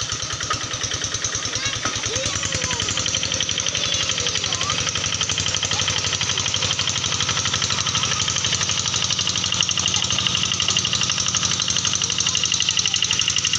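Small engine running steadily with a fast, even knocking beat.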